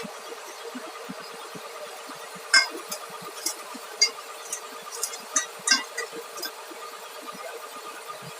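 Scattered sharp metallic clinks of tools and steel track parts being handled, several in the middle seconds, over a steady machine hum.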